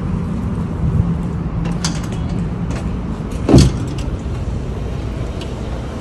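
Steady low rumble of nearby road traffic, with a few light clicks and one loud thump about three and a half seconds in as a glass entrance door is pushed open.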